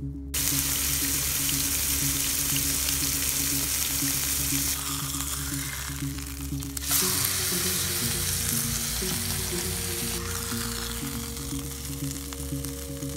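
Oil sizzling in an anodized aluminium frying pan on a backpacking gas stove. The sizzle starts suddenly just after the start and flares louder about seven seconds in, as a raw ground-beef patty is laid into the pan.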